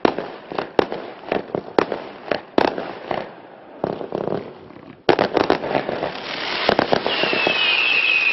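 Klasek 536-shot F3 compound firework cake firing: a run of sharp shots and bursts, then a short lull. About five seconds in a new volley of rapid shots starts suddenly, and near the end wavering whistles rise over it.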